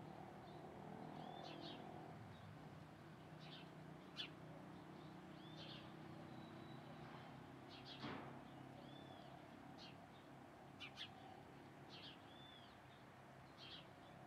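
Male house sparrow chirping over and over, short cheeping calls every second or two, with a faint steady low background noise.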